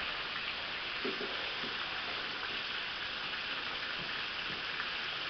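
Steady hiss of background noise with a faint, brief murmur of a voice about a second in.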